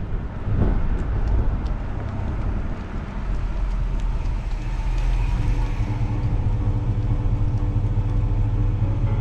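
The 361 cubic-inch V8 of a 1965 Dodge Coronet 440 running through its dual exhaust as the car drives slowly up, a deep steady rumble with a brief surge of throttle about half a second in.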